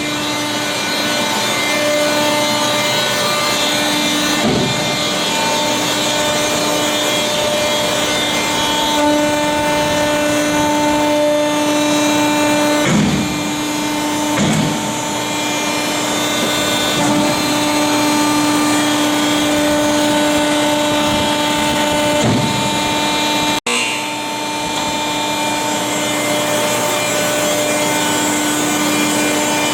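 Selco horizontal baler running under power: its 40-hp electric motor and hydraulic pump give a steady hum, with overtones that come and go as the load changes. There is a grinding, rubbing noise throughout and several dull thumps, about a second and a half apart around the middle.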